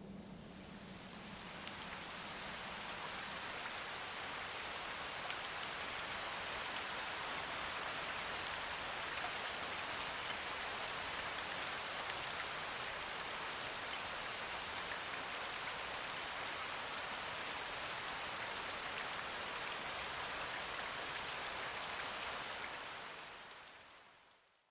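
Steady rain, an even hiss of falling drops, fading in over the first couple of seconds and fading out near the end.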